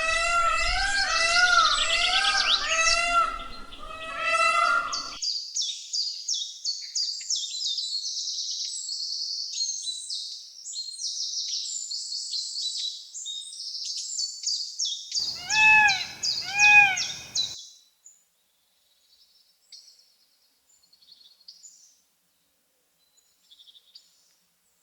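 A dense chorus of small birds chirping, with loud repeated arching calls from a larger bird over the first five seconds and a run of four such calls about two-thirds of the way in. The sound cuts off abruptly after that, leaving only a few faint chirps.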